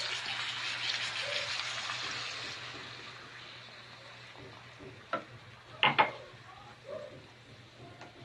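Bangus (milkfish) strips and onions sizzling in a hot pan as soy sauce goes in, the sizzle loud at first and dying down after about two and a half seconds. A few sharp clinks of cookware follow past the middle.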